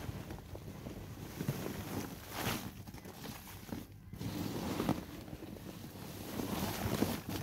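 Hands stirring shredded paper into moist compost in a plastic worm bin, making irregular rustling and crunching, with wind rumbling on the microphone underneath.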